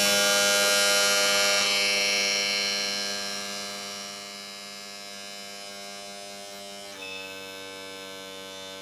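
Honda outboard power trim/tilt unit running on the bench off a jump starter: its 12-volt electric motor drives the hydraulic pump and moves the ram up and down, cycled with the filler cap cracked to bleed air from the fresh oil. A steady, buzzing motor whine with many overtones, which grows quieter around three to four seconds in and shifts in pitch about seven seconds in.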